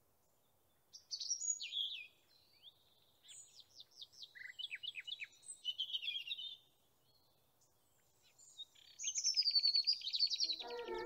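Songbirds singing: several bursts of high chirps and quick whistled notes with short pauses between them, ending in a fast trill of rapidly repeated notes.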